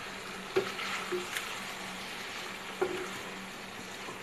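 Wooden spoon stirring chicken, tomatoes and yogurt in a cast-iron karahi over a high flame, the food sizzling steadily, with a few knocks of the spoon against the pan.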